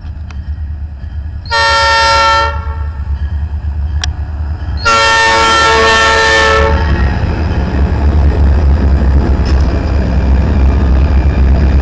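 Diesel freight locomotive's air horn sounding two blasts: a short one about a second and a half in and a longer one of about two seconds starting about five seconds in, each a chord of several tones. Under and after the blasts, the lead diesel locomotives pass close by with a steady low engine rumble.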